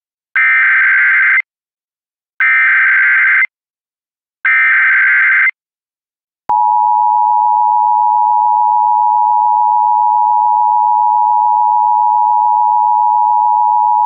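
Emergency Alert System tones announcing a law enforcement warning. Three one-second bursts of SAME header data come two seconds apart. Then, about six and a half seconds in, the steady EAS attention tone starts and holds.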